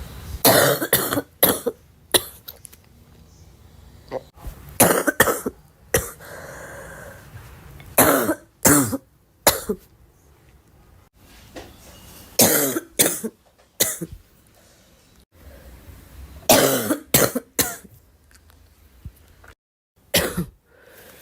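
A girl coughing in repeated fits of a few hacking coughs each, about every three to four seconds.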